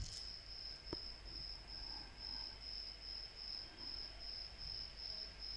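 A cricket chirping steadily in the background, a high-pitched chirp about twice a second, with one faint click about a second in.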